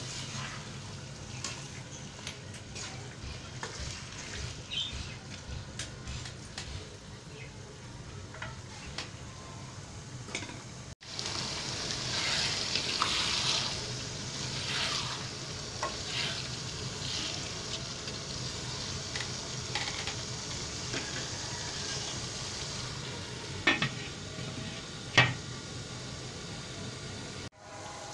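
Spatula stirring and scraping potatoes and masala in a nonstick wok while they sizzle, the frying louder in the second half. Two sharp knocks come a second and a half apart near the end.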